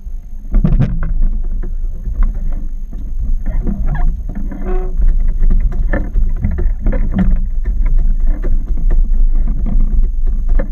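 On a small outboard fishing boat, a steady low rumble runs under frequent sharp knocks and clatters on the deck and hull.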